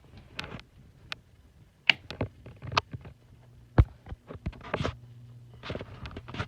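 A handful of sharp clicks and knocks, then about three seconds in a steady low electric hum starts up: the motor of a Harbor Breeze Pulsar ceiling fan being switched on.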